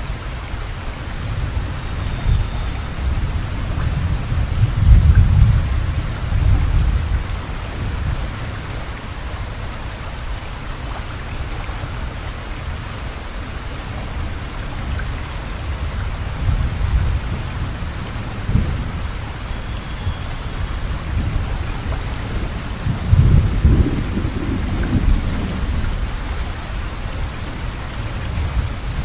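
Steady, heavy rainfall, with low rolls of thunder about five seconds in and again about twenty-three seconds in.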